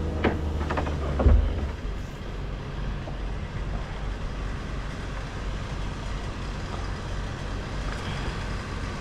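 Heavy engine running steadily at a low rumble, likely the bucket truck's engine, with a few sharp knocks in the first second and a half.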